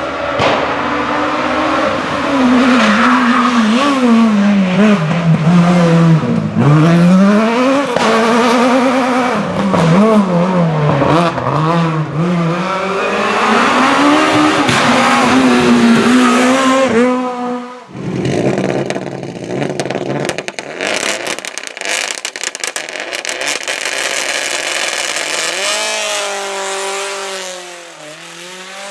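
Rally car engine revving hard through its gears, the pitch climbing and dropping several times with brief tyre squeal. After a sudden break about two-thirds in, a rapid crackle follows, and near the end another engine's pitch rises and falls.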